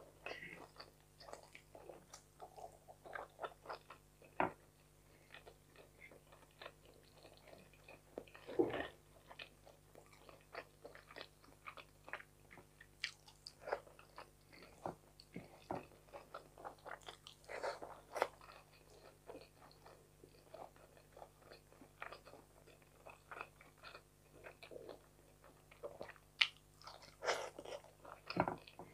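A person chewing mouthfuls of fried fish and rice eaten by hand, with many short, irregular mouth clicks and small crunches.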